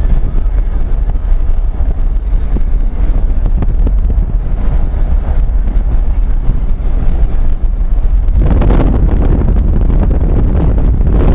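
Wind buffeting the microphone of a moving car, over a deep rumble of road and engine noise. The rush grows louder and brighter about eight seconds in.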